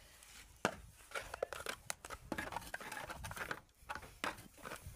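Wooden mwiko (cooking stick) working stiff sima (ugali) in the cooking pot: irregular scrapes and knocks with several sharp clicks.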